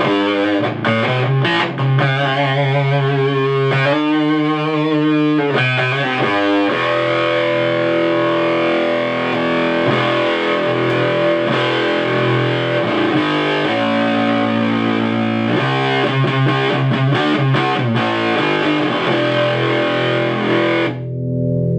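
Electric guitar played through a 1960s Univox Uni-Fuzz (Shin-Ei Super-Fuzz circuit) into a small 2-watt amplifier, giving a dark, thick fuzz with an octave underneath. The notes ring out with only slight hiss and no 120 Hz mains buzz, the sign of the pedal's rebuilt power supply.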